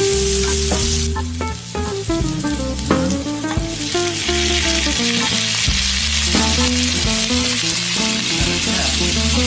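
Frog meat sizzling with garlic, ginger and onion in a hot oiled wok, stirred and scraped with a spatula. The sizzle thins for a moment and then comes back stronger about three and a half seconds in. Background music plays under it.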